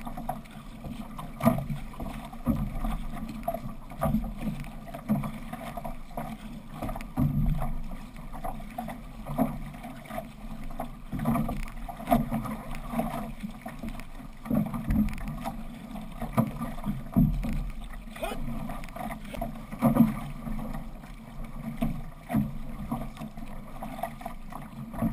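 Six-person outrigger canoe under way: the paddles catch and pull through the water in a steady rhythm about once a second, with water rushing and splashing along the hull and outrigger float.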